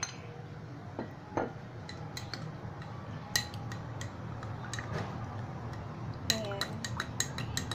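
Metal spoon stirring a cornstarch-and-water slurry in a small drinking glass, clinking against the glass in scattered light taps that come quicker near the end.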